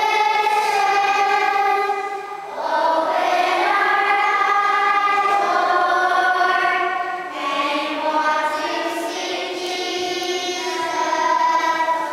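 Children's choir singing, with notes held for about a second each and short breaks between phrases, one about two seconds in and another about seven seconds in.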